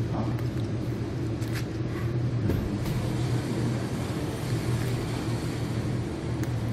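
Two cats eating dry kibble from a metal bowl, with a few short crunches, over a steady low hum.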